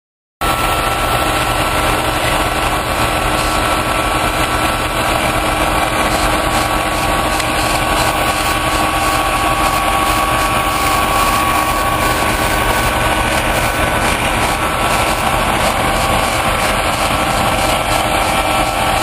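Diesel engines of a Caterpillar asphalt paver and a dump truck running steadily as the truck unloads asphalt into the paver, with a steady high whine over the engine sound. It starts suddenly about half a second in.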